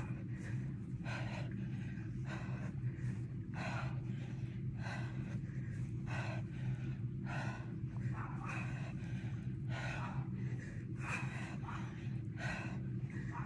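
A woman breathing hard through a set of sit-ups, with a sharp breath in and out on each repetition, about one rep every second and a half, over a steady low hum.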